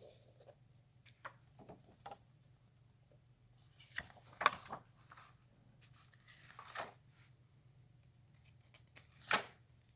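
Faint, scattered rustles and short scrapes of a comic book being handled and taken out of its plastic bag. A handful of them come with quiet between, the loudest about four and a half seconds in and again near the end.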